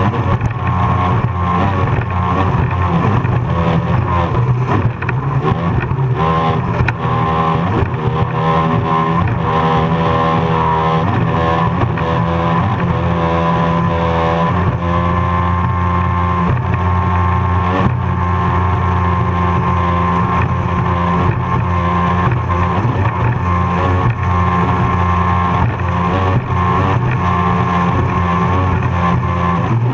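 Racing powerboat's engine running hard at high revs, heard from on board over the rush of wind and water. Its pitch wavers up and down for the first half as the boat bounces across the chop, then holds steady.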